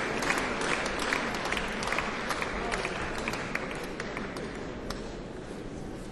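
Concert hall audience applauding, the clapping thinning and fading in the second half.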